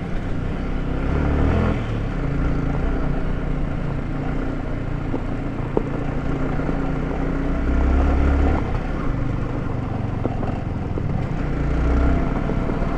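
Motorcycle engine running and revving up hard several times, the revs swelling about a second and a half in, around eight seconds in and again near the end.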